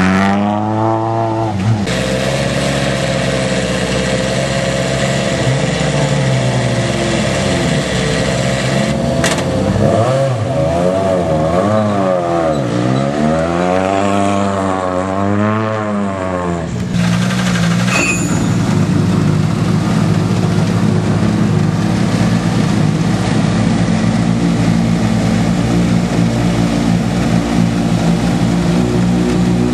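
Turbocharged four-cylinder rally car engines revving up and down as the cars pull slowly past. About halfway through, one rally car's engine settles into a steady idle close by.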